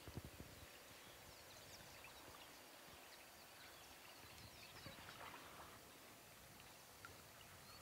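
Near silence with faint, scattered wild bird chirps and short calls over a low background hiss, with a brief cluster of calls about five seconds in.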